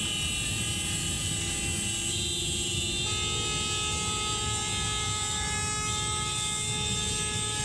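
Several car horns held down at once in a traffic jam, their steady tones overlapping, with new horns joining about two and three seconds in, over the low rumble of idling traffic.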